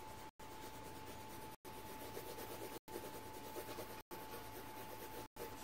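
Coloured pencil shading on paper, a faint steady scratching and rubbing of the lead against the sheet, broken by brief silent gaps about every second.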